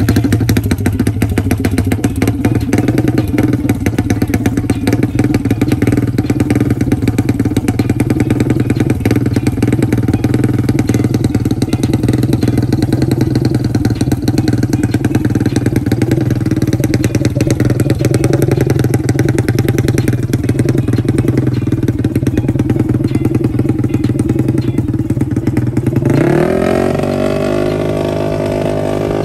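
Drag-racing quad's engine idling loud and steady through an open straight exhaust pipe, just after being started. About 26 s in, an engine note climbs in pitch and holds higher.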